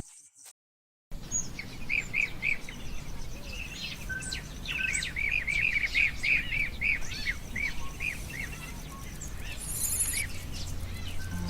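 Bird calling in a long run of short, arched chirps, two or three a second, over a steady low rumble of outdoor background noise; it begins after about a second of dead silence.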